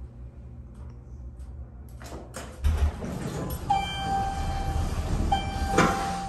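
National elevator car stopping at a floor and its doors sliding open. A low thump comes first, then a steady high tone sounds twice with a short break between. A sharp clunk comes near the end as the doors begin to open.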